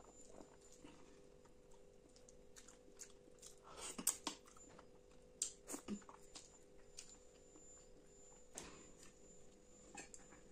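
Close-miked eating sounds of rice and curry eaten by hand: soft wet chewing and mouth clicks, with a few louder sticky smacks around four and six seconds in.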